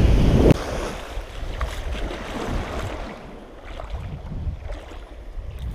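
Sea waves breaking on rocks, with wind on the microphone, cutting off abruptly about half a second in. Then quieter wind buffeting and gentle lapping water, with a few faint ticks.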